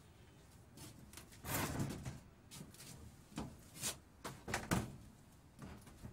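A few scattered knocks and clicks, quiet overall, with a short rustling noise about one and a half seconds in and a quick run of sharper knocks in the middle, the loudest of them at about four and three-quarter seconds.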